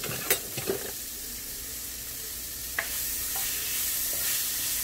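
Asparagus sizzling as it pan-roasts in a skillet. The sizzle gets louder about three seconds in, with a couple of sharp clicks in the first second and another near the three-second mark.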